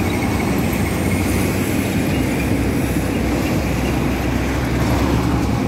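Heavy diesel trucks running in roadside traffic: a steady, unbroken rumble.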